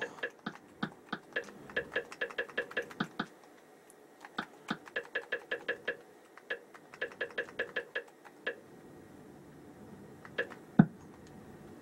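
Small plastic clicks of TV remote buttons pressed in quick runs of about four a second, as the cursor is stepped across an on-screen keyboard. There are three runs with short pauses between them, then one louder single click near the end.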